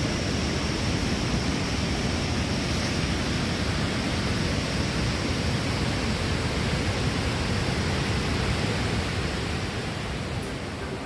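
Waterfall's steady rush of falling water, easing a little near the end.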